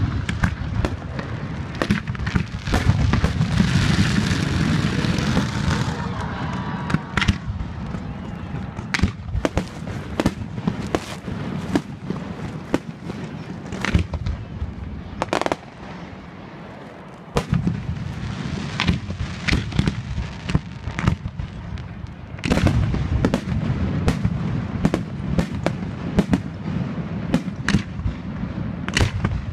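Fireworks display going off: a rapid string of sharp bangs and crackles, with a dense hissing crackle about four seconds in and a brief lull a little past halfway.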